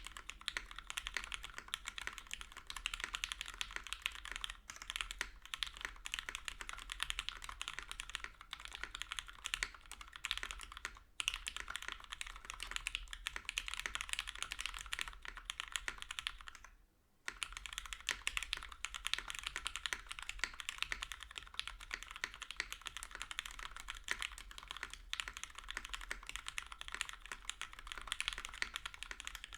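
Typing on a UTD 356 Mini mechanical keyboard with lubed and filmed Cherry MX Hyperglide Black linear switches, an aluminium plate in a gummy O-ring mount and GMK keycaps. Keystrokes come in a fast, steady run, with short pauses about 11 seconds in and again around 17 seconds. The bottom-out sounds a little hollow, which the owner puts partly down to the deskmat.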